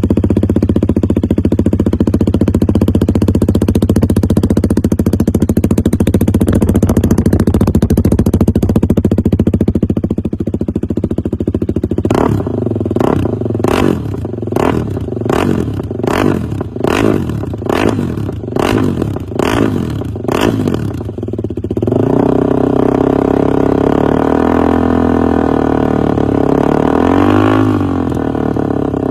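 KTM Duke 390's single-cylinder engine through an aftermarket silencer, idling steadily at first. From about halfway it is revved in a quick run of sharp throttle blips, more than one a second, then settles back to a steady idle with one short rev near the end.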